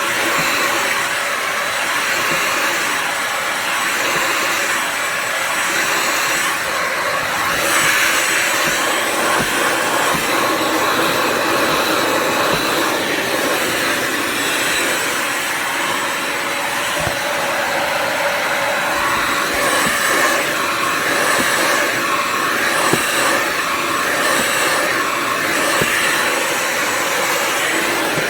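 Bissell Symphony Pet steam mop and vacuum running steadily, its vacuum motor giving an even whirring hiss with a faint high whine, and a few small clicks.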